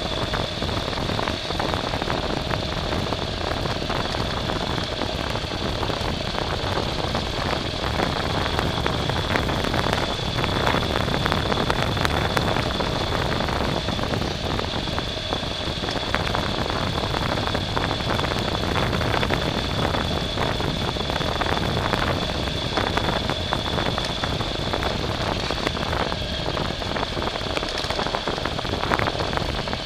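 A vehicle running continuously, with a steady high-pitched whine over rough, rattling noise.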